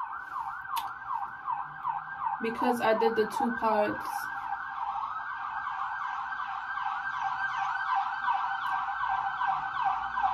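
An emergency vehicle siren in fast yelp mode: a loud wail sweeping rapidly up and down, about three sweeps a second, without a break.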